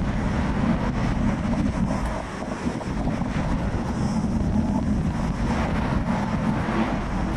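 Wind buffeting a phone's microphone on a moving bicycle, mixed with road traffic noise from cars passing alongside.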